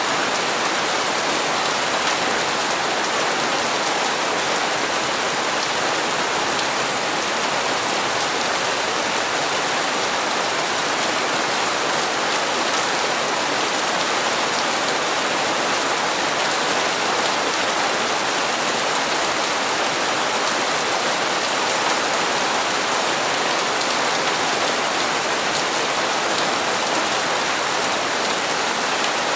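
Steady rain falling in an even hiss, with faint drops ticking on hard surfaces.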